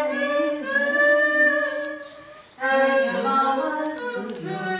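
Harmonica playing a slow melody of held notes that step from pitch to pitch, with a short break about two and a half seconds in.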